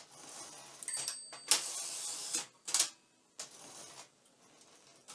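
Underwood typewriter carriage worked by its line-space lever: the lever clicks as the platen advances a line, and the carriage slides back along its rail with a rattle and sharp clicks. There is a second, shorter clatter of clicks and sliding about three seconds in.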